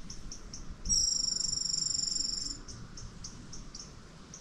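Insects chirping outdoors: short high-pitched chirps repeating about three times a second, joined about a second in by a louder, steady high trill that lasts about a second and a half.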